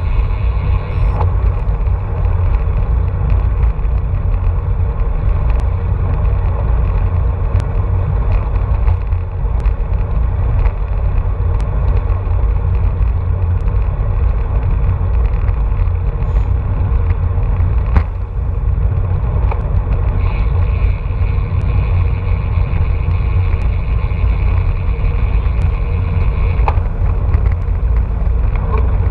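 Wind rushing over the microphone of a handlebar-mounted camera on a road bike at race speed: a loud, steady low rumble, with a few sharp clicks from the bike and road, the clearest about 18 seconds in.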